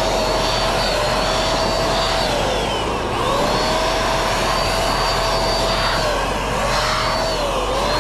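Handheld electric paint sprayer (Penkiya-kun) running, a steady motor whine over rushing air. Its pitch sags and comes back up about three times.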